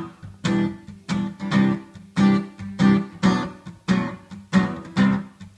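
Acoustic guitar strummed in a steady rhythm, about two strokes a second, as an instrumental break with no singing.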